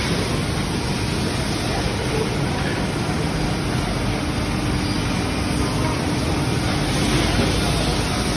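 Woodworking sanding machinery running steadily: a continuous noisy whir with a faint steady hum under it.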